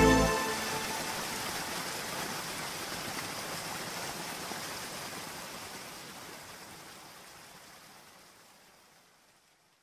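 Steady hiss of falling rain that fades out slowly to silence over about nine seconds, just after the last notes of the music stop.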